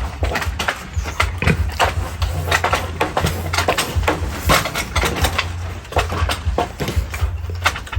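Pigs eating feed: irregular crunching and clicking, several small knocks a second, over a steady low hum.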